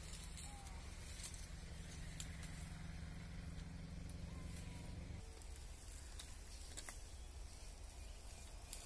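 Faint outdoor ambience: a low steady hum that cuts off about five seconds in, with scattered sharp clicks and snaps of twigs and branches as a man climbs a tree, and a faint bird chirp or two.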